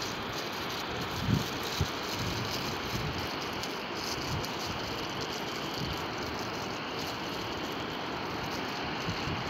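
Steady rushing noise of wind on the microphone, with two brief low buffets a little over a second in.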